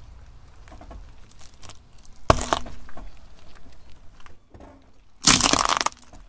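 A car tyre rolling over and crushing things on asphalt: a sharp crack about two seconds in, then a loud crunch lasting just over half a second near the end.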